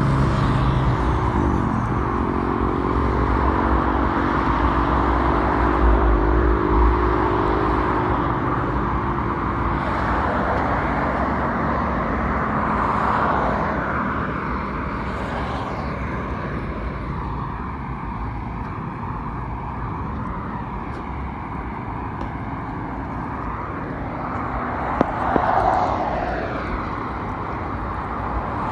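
Highway traffic humming: cars passing with a steady tyre roar. In the first several seconds one passing vehicle's engine drone slowly falls in pitch, and another vehicle sweeps past near the end.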